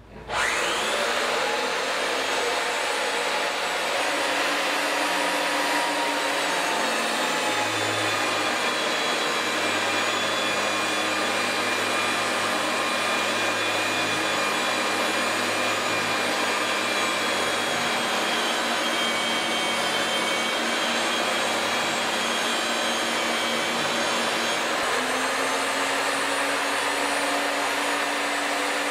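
RIDGID 535 pipe threader starting up and running steadily with a whine as its die head cuts threads on a pipe. The tone shifts about seven seconds in and again near the end.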